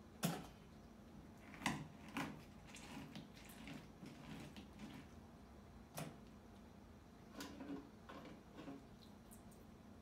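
A handful of short, sharp knocks and clicks from lemon halves, plastic bowls and a spoon being handled on a table while lemon juice is squeezed out, over a faint steady hum.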